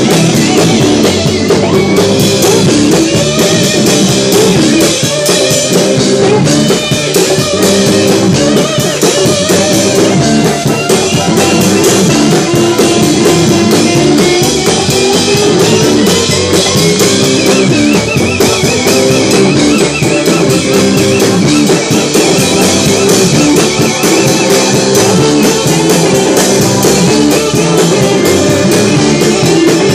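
Live sacred steel gospel band playing: drum kit with cymbals, electric guitar, electric bass and a lap steel guitar together in a steady groove. About halfway through, a wavering sliding line rises above the band.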